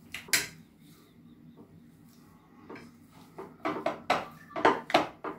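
Wire potato masher pushing boiled sweet potato against the bowl. One stroke comes near the start, then a run of quick soft strokes through the second half.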